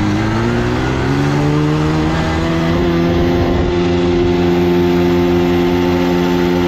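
Bajaj Pulsar 220F single-cylinder engine accelerating hard in first gear: its pitch rises for about the first two and a half seconds, then holds steady at high revs. Wind rushes over the microphone throughout.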